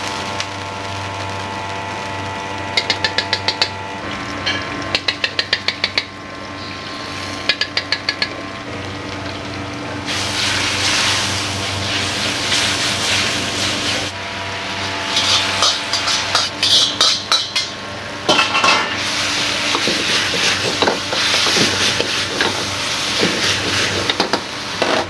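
Wok cooking in a restaurant kitchen: three short runs of quick metal clicks from a ladle against the wok or bowls, then food sizzling in a hot wok from about ten seconds in, with ladle scraping and clatter. A steady low kitchen drone runs underneath.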